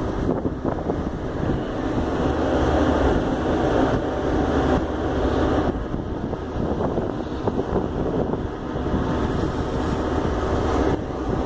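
Wind buffeting the microphone over the steady rush of water along a moving ship's hull, with a constant low rumble underneath.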